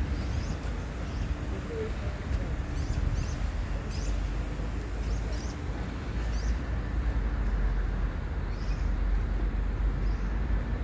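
Outdoor background noise: a steady low rumble, with short high bird chirps scattered through it.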